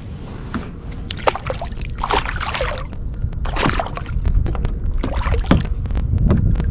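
Water splashing and sloshing at the side of a kayak as a spotted seatrout is lowered from a fish grip and released, with scattered sharp clicks over a steady low rumble.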